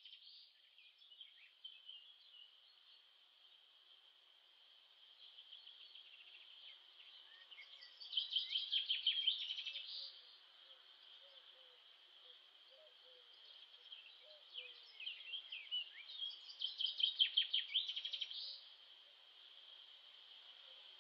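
Birdsong: a bird sings a loud, rapid trilled phrase twice, about eight seconds in and again about seventeen seconds in, over a steady high background chorus.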